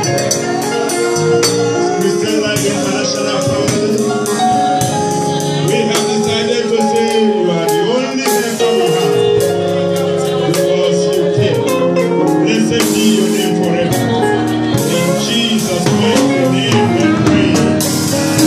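Live gospel worship music: a group of voices singing over a drum kit with steady cymbal and drum strikes.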